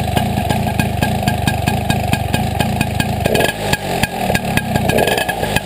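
Small two-stroke moped engine idling, with an even train of firing pulses and a brief shift in its note about three and a half seconds in. It runs without the tapping of pinking (pistão batendo), which the owner credits to a properly set carburettor.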